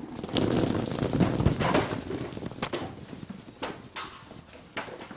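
Hundreds of small rubber bouncy balls raining down and bouncing on brick paving and grass: a dense clatter of rapid knocks for the first couple of seconds, thinning out to scattered single bounces.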